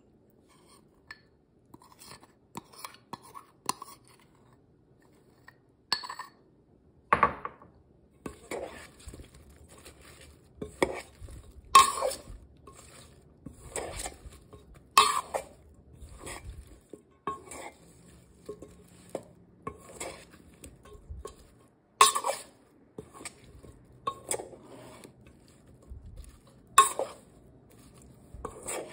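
Metal spoon clinking and scraping against a stainless steel mixing bowl while cauliflower florets are tossed in sauce. Only faint small clicks at first, then sharp ringing clinks about once a second from around six seconds in.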